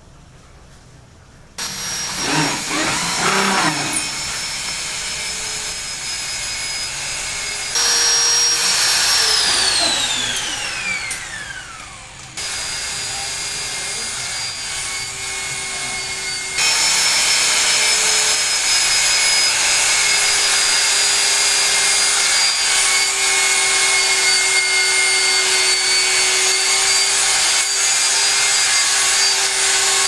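A small electric power tool motor, drill-like, running in several stretches cut abruptly one into the next. One stretch winds down with a falling whine, and the last runs steadily to the end.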